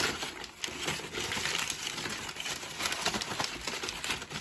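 Packaging rustling and crinkling as a boxed device is unwrapped by hand, a dense run of small crackles.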